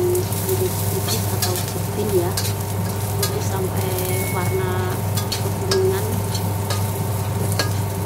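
Sliced garlic sizzling in hot oil in a wok, stirred with a metal spatula that scrapes and clicks against the pan. A steady low hum runs underneath.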